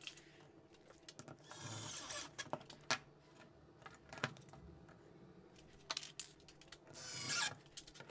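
Plywood French cleat strip being handled and set against the wall: scattered light knocks and clicks, with two short scraping rubs, about a second and a half in and near the end.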